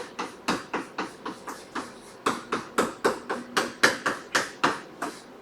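Quick, even strokes of a pen or chalk on a writing surface, about four a second, as a region of a diagram is shaded in.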